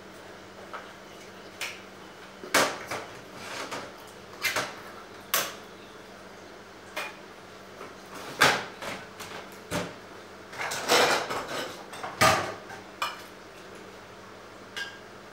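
Pots, dishes and utensils being handled, with irregular knocks and clatters and a quick run of them about eleven seconds in, over a faint steady hum.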